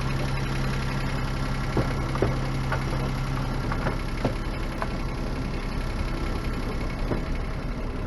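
Sailboat's inboard engine running steadily with no belt squeal: the slipping fan belt has just been tightened. A few light knocks sound over the engine, and its steady low hum drops away about three and a half seconds in.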